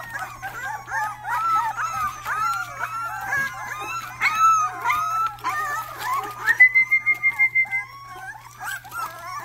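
A litter of young Rottweiler puppies whining and yelping all at once, many short rising-and-falling cries overlapping, with one long high whine held for about a second past the middle.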